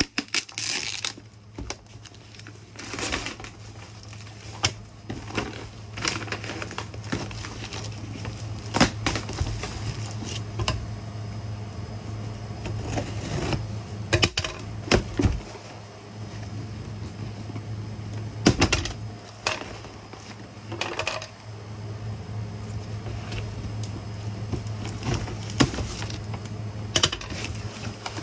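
Kraft packing paper crinkling and tearing as a cardboard shipping box is unpacked and cut open with scissors, giving many irregular sharp crackles and snips. A steady low hum runs underneath.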